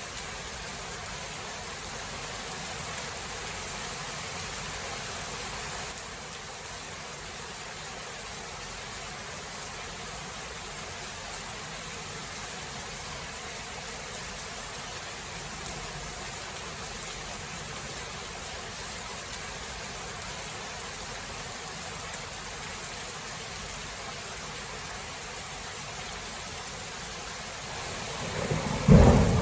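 Steady rain hiss from a thunderstorm. Near the end a loud, low rumble of thunder breaks in.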